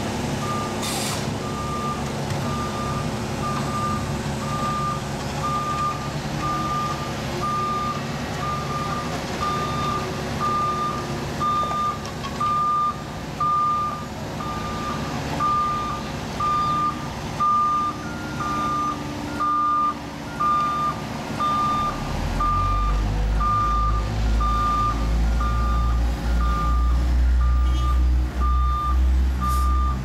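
A construction vehicle's backup alarm beeps steadily about once a second over diesel engines running at an asphalt paving job. About two-thirds of the way in, a deep engine rumble swells and stays loud.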